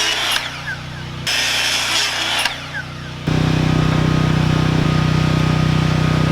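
Power saw machinery cutting wood, heard in short edited clips that break off abruptly, then from about three seconds in an engine running steadily with a low even hum.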